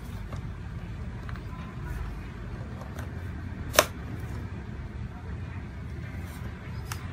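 Small clicks of LG G5 phone parts being handled and pressed together while the cover is fitted, with one sharp click a little under four seconds in and a fainter one near the end, over a steady low hum.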